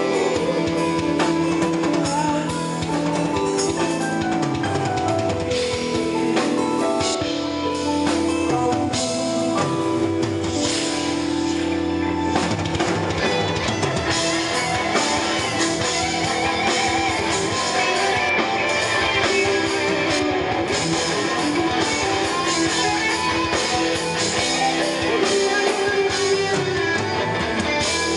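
A live metal band playing: distorted electric guitars and bass over a drum kit, loud and continuous.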